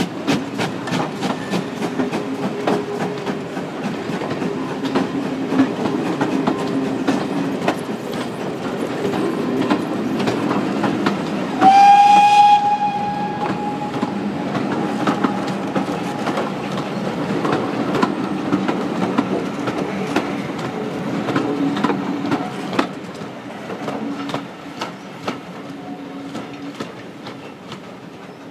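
Passenger coaches of a departing steam train rolling past, their wheels clicking rhythmically over the rail joints over a low rumble, the sound fading as the train draws away. About twelve seconds in, the locomotive's steam whistle gives one loud blast of about a second.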